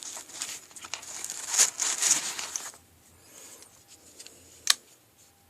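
Rustling and scraping as the pouch and a folding knife are handled for about three seconds, followed by a single sharp click near the end.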